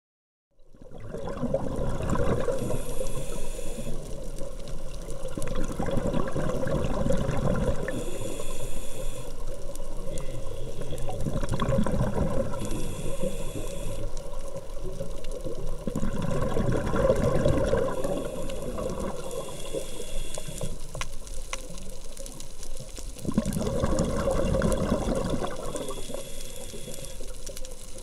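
Scuba diver breathing underwater through a regulator: a hiss on each inhale alternating with a rush of exhaled bubbles, repeating about every four to five seconds. It begins about half a second in.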